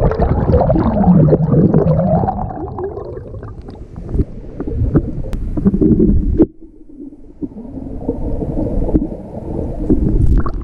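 Underwater sound from a GoPro held in a shallow flowing stream: muffled gurgling and rushing water with wavering, warbling tones, bubbles and knocks against the camera. It turns suddenly quieter about six and a half seconds in, leaving a steadier low, muffled rush.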